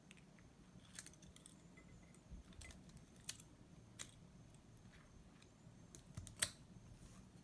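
Faint, scattered small clicks and taps of lock parts being handled and fitted during reassembly, the loudest about six and a half seconds in.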